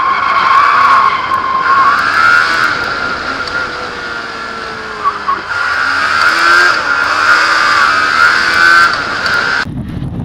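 Rage Buggy R200RT heard from onboard as it is driven hard: the engine revs rise and fall through the gears, with tyre squeal as the buggy drifts through the corners. Just before the end the sound cuts abruptly to a low rumble.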